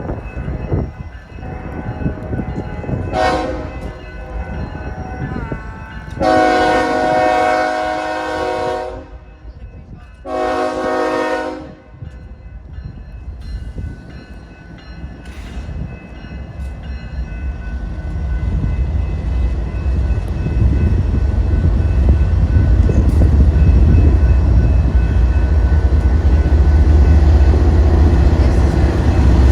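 Diesel freight locomotive horn sounding for a grade crossing: a short blast, a long one, a shorter one and a brief final toot. Then the heavy low rumble of the locomotive and train rises as it draws close and passes, likely a BNSF GE Dash-9 running slowly.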